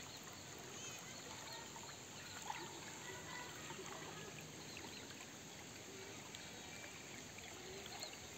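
Shallow, clear creek trickling steadily over stones and rocks, faint and even.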